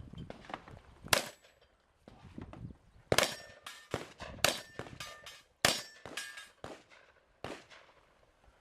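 Shotgun fired about ten times: a single shot about a second in, then a rapid string of shots, with a steel target ringing between them.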